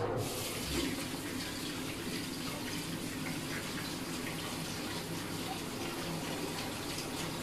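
Kitchen tap running steadily into a sink, water splashing over what is held under it.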